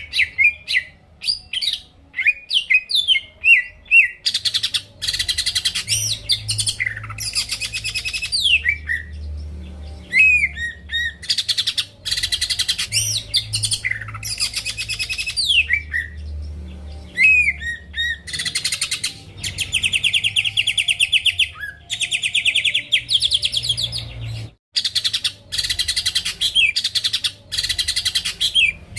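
Cucak ijo (green leafbird) singing in full, vigorous song: sharp falling whistled notes alternate with long, fast rattling trills that run for several seconds at a time.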